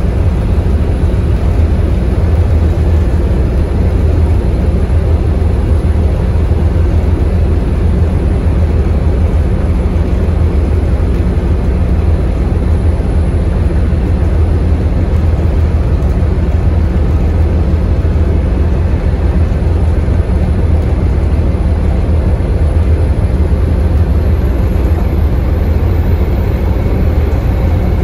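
Scania K280UB bus's rear-mounted five-cylinder diesel engine running steadily under way, heard from inside the passenger cabin. The low drone and road noise hold steady throughout.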